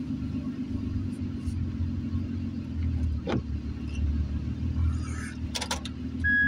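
Truck engine running with a steady low rumble, heard from inside the cab as the truck rolls in and stops. There is a single knock about three seconds in, a few clicks near the end, and a short electronic beep right at the end.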